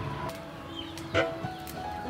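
Soft background music of held notes stepping from one pitch to the next. One short knock comes a little past halfway.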